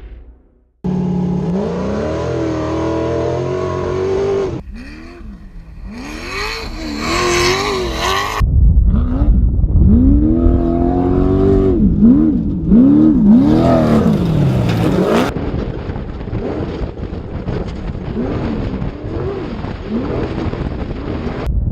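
Class 1 off-road race car engine revving hard, its pitch rising and falling again and again as the throttle opens and closes, with a few quick rev spikes in a row. The sound changes abruptly several times, as footage cuts from one shot to another.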